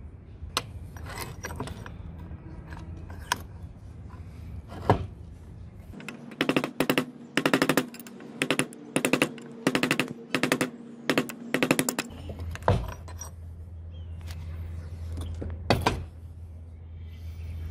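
Hammer blows on a steel punch driving the old wooden handle stub out of the eye of a rusted cross peen hammer head held in a vise. A few single knocks, then about six seconds in a quick run of ringing metal strikes in clusters lasting some six seconds, then two more knocks.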